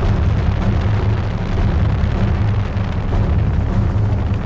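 Helicopter in flight, heard from a microphone on its open outside bench: a loud, steady, deep rumble of rotor and engine mixed with wind buffeting the microphone.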